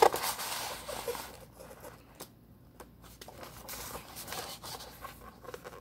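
Rustling and handling noises as items are handled: a loud rustle at the start, then scattered small rustles and clicks.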